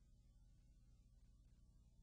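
Near silence: a faint, steady low hum.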